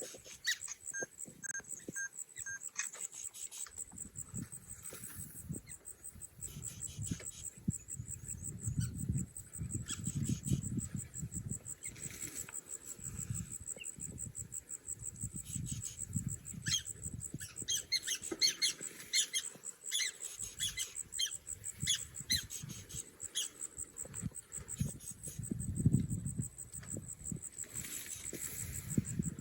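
Wild outdoor ambience: a steady, fast-pulsing insect chorus with short bird calls, a clipped call repeated four times about a second in and a run of chirps in the second half, over an irregular low rumble.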